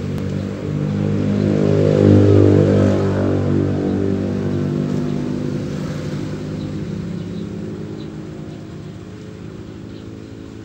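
A motor vehicle engine running nearby, a steady low hum that swells to its loudest about two seconds in and then slowly fades away.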